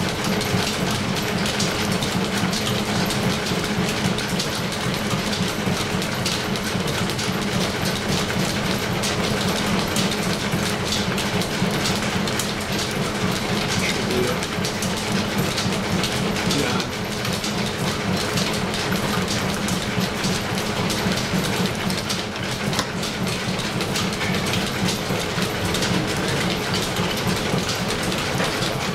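Belt-driven horizontal milling machine running steadily under power feed, its gear cutter cutting a tooth in a gear blank held on a dividing head.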